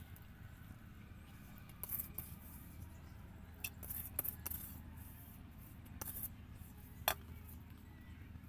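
Hands handling food on a banana leaf: faint scattered crackles and clicks, the sharpest about seven seconds in, over a low steady hum.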